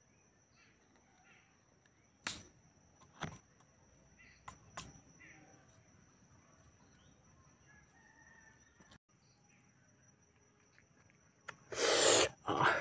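Quiet outdoor ambience with faint, scattered bird calls and a few sharp clicks. Near the end come loud rustling and scraping bursts as hands toss fried pork belly pieces with chopped onion on a leaf.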